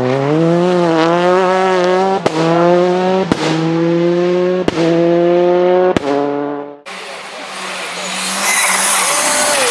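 A car-engine-like drone rising slowly in pitch under the opening logo, broken by four sharp cracks, cutting off suddenly about seven seconds in. Then a Škoda Fabia rally car on a dirt forest stage, its engine growing louder with a dense hiss of tyres on the loose surface as it approaches.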